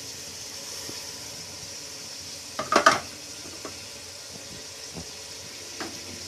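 Stir-fried vegetables sizzling steadily in a hot pot as soy sauce is poured in. About three seconds in comes a quick cluster of sharp knocks against the pot, the loudest sound here, with a few faint knocks later.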